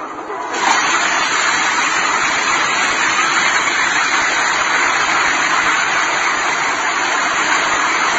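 Multi-storey apartment building collapsing: a loud, even roar of falling rubble and rushing dust that starts suddenly about half a second in.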